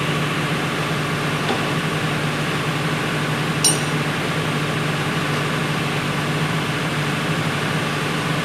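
A steady low mechanical hum runs throughout, with one short metallic clink about three and a half seconds in as a wheel loader brake caliper is set against the jaws of a steel bench vise.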